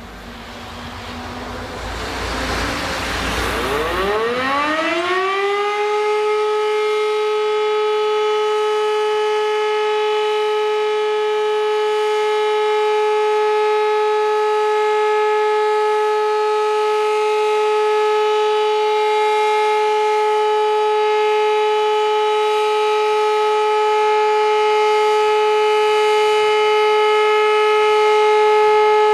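Civil-defence siren on the town hall roof winding up, its pitch rising over the first five seconds or so, then holding one loud, steady tone. A steady tone like this is the German all-clear signal (Entwarnung).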